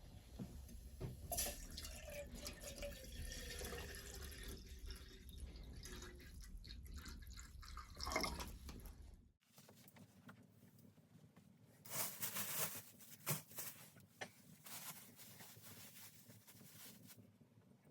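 Water pouring and dripping, which stops abruptly about halfway through, followed by a few short noisy bursts.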